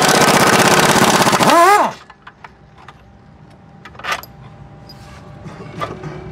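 Pneumatic impact wrench hammering on a bolt for about two seconds, its rattle ending in a brief rising-then-falling whine as the trigger is let off. After that come a few light clicks and knocks of hand tools on metal.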